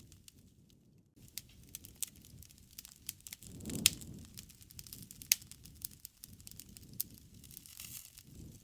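Wood fire burning, crackling with irregular sharp pops, two louder ones in the middle, over a low rushing of flames that swells and fades.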